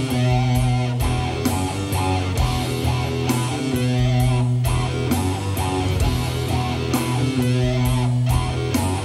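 Live band playing doom metal: a slow electric guitar riff over bass guitar, with drums and cymbal hits at a steady beat.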